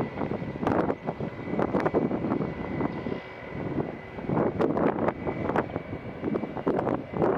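Airplane engines running, with a faint steady high whine, while wind gusts buffet the microphone.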